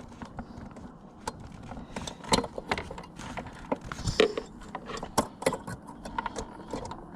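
Irregular small clicks and taps of a motorcycle headlight bulb's retaining clamp being worked by hand against the headlight housing, as someone tries to get it to hook back into its latch.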